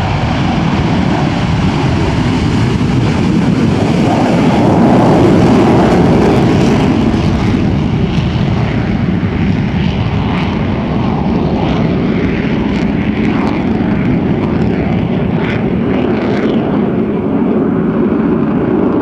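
F/A-18 Hornet's twin jet engines at takeoff power as the fighter rolls and climbs away: loud, continuous jet noise that swells to its loudest about five seconds in and then holds.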